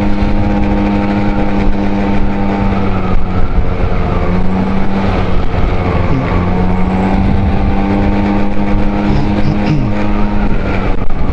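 Honda Dio 27 scooter's small two-stroke engine running as it is ridden, a steady engine note over wind and road rumble. The note drops back for a few seconds about three seconds in, then returns.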